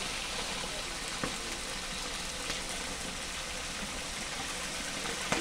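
Fish frying in hot oil in a cast-iron pan over a wood fire: a steady sizzle with a few sharp pops.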